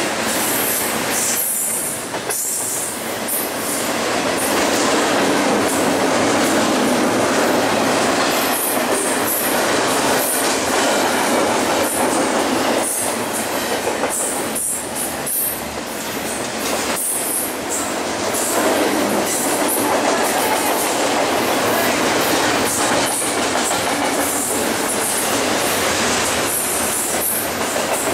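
BNSF double-stack container train rolling past at speed: a loud, steady rush and rumble of steel wheels on rail, with brief dips in the noise now and then.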